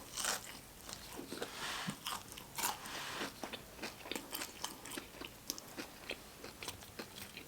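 A person biting and chewing crispy Popeyes food: irregular crunches and small mouth clicks.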